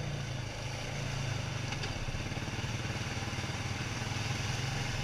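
ATV engine running steadily while riding, heard from on board the quad, a constant low drone with no revving up or down.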